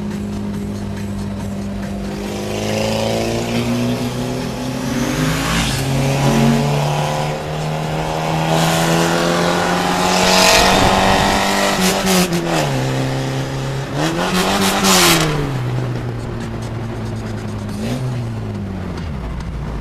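Classic Mini's four-cylinder A-series engine heard from inside the cabin, running steadily under load on a winding road, with its pitch rising and then falling in a few short rev blips in the second half. A loud rush of exhaust and wind comes in about halfway through as another Mini runs close alongside.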